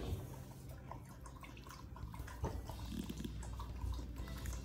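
Faint rustling and light scattered ticks of a hand stroking a cat's fur while the cat shifts and steps on a wooden floor.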